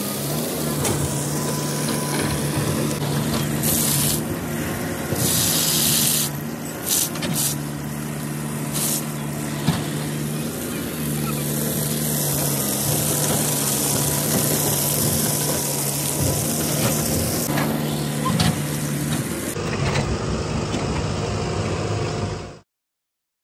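Water gushing steadily from a borewell's submersible pump outlet, with a steady low hum underneath; the sound cuts off suddenly near the end.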